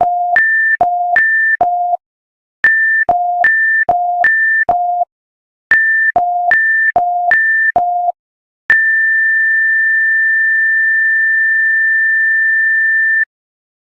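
Emergency alert system test tones closing the test: three bursts of quickly alternating high and low electronic beeps, then one long steady high tone that cuts off abruptly.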